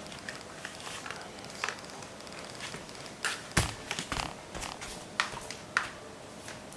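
Handling noise: a string of sharp plastic clicks and short crackly rustles, with a louder knock about three and a half seconds in.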